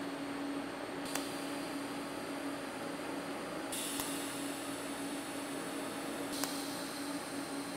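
TIG welding arc from an HTP Invertig 221 welder on round steel tube: a steady electrical buzz with a hiss over it. The higher part of the hiss shifts a few times, with faint clicks.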